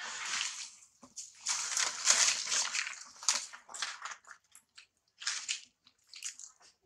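Dry leaves crunching and rustling in a series of short, irregular bursts as monkeys scuffle and scramble over the leaf litter, loudest a second or two in.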